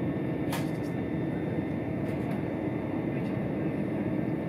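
Inside the carriage of a moving c2c electric train: the steady running noise of wheels on rails and the train in motion, with a brief click about half a second in.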